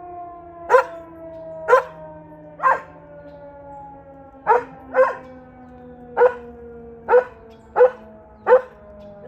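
A dog barking repeatedly, nine short barks about a second apart, at a tornado siren. Under the barks the siren's steady wail slowly falls in pitch as it winds down.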